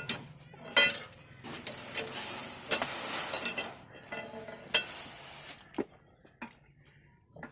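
Several sharp metallic clinks and knocks, with bouts of scraping in between, as of metal parts or tools being handled. It goes much quieter for the last second or so.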